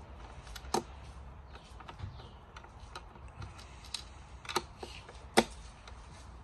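Scattered small clicks and knocks of a screwdriver and screws working against the plastic underside of a mobility scooter's chassis. The sharpest clicks come about three-quarters of a second in and again near five and a half seconds.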